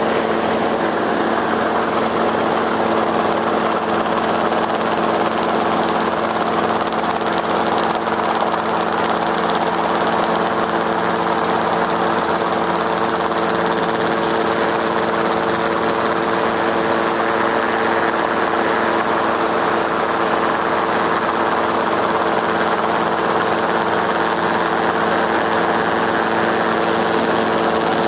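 Steady hum of the motors and propellers of the aircraft carrying the overhead camera: several even tones over a rushing noise, unchanging in pitch and level.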